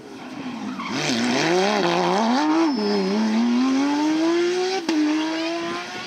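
Porsche 997 GT3 rally car's flat-six engine, loud and close: the note rises and falls with the throttle through a corner, then climbs steadily under hard acceleration. Near five seconds in there is a sharp crack and the pitch drops at a gear change, then climbs again as the car pulls away.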